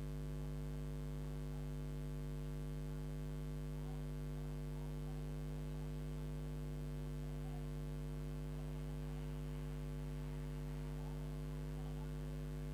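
Steady electrical mains hum, a low buzz with several overtones, holding at one level throughout; no other sound stands out.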